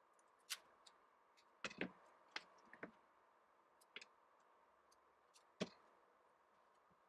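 Scattered light taps and clicks from hands handling a tape-covered cardboard form, a packing-tape roll and a box knife on a wooden board. There are about eight short, irregular knocks, the loudest a little over halfway through.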